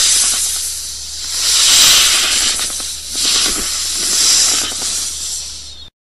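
Snake hissing in long breaths that swell and fade about four times, then cuts off abruptly just before the end.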